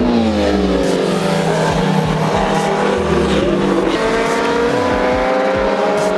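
Racing superbike engines at high revs, several at once, with pitches falling just after the start and then rising gradually as the bikes change speed.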